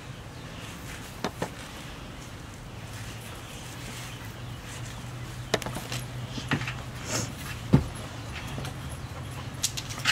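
Two dogs play-wrestling on concrete: scattered clicks and jingles from a chain collar and claws, the sharpest about three-quarters of the way through, over a steady low hum.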